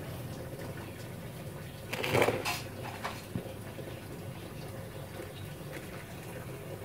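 Dry coconut-husk chunks and crushed charcoal rustling and clinking as they are pressed down into a terracotta pot by hand. There is one louder burst of handling about two seconds in and a couple of small knocks soon after, over a steady low hum.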